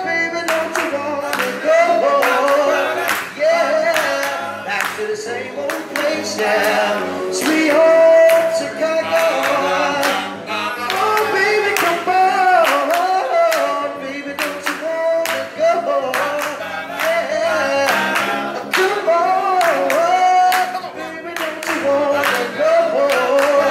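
A vocal group of men singing in harmony, a melodic lead line over backing voices, kept to a steady beat of sharp clicks.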